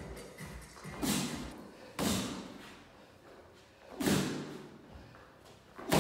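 Punches landing on boxing gloves: four padded thuds, the last the loudest, each echoing briefly in the large gym hall.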